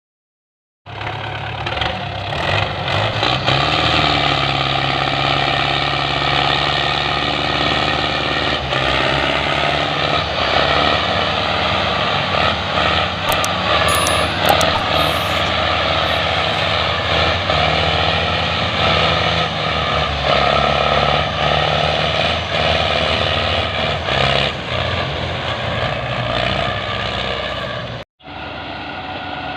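Belarus tractor diesel engines running hard at high revs, their pitch stepping up and down a few seconds in. The sound cuts out abruptly near the end and resumes.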